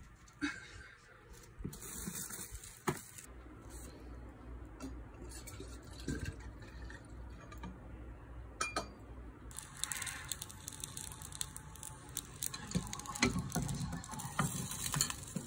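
Faint clinks and knocks of dishes and glassware, scattered and irregular, growing busier near the end.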